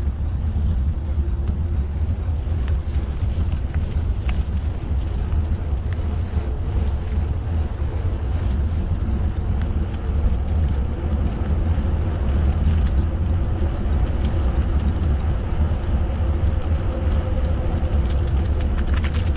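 Steady low rumble of riding a mountain bike on a paved path: wind buffeting the microphone and the tyres rolling over the asphalt.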